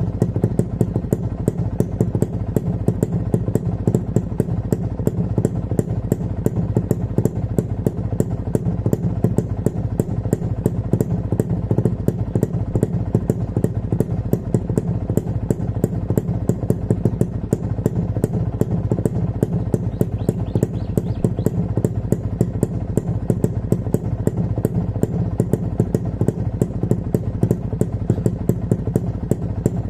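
2001 Kawasaki motorcycle engine idling steadily after a ride, with an even, regular ticking clatter several times a second and no revving.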